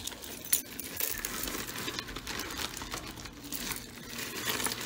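Hands rummaging through a bag of costume jewelry: steady plastic crinkling and rustling, with many small clicks and clinks of jewelry pieces knocking together.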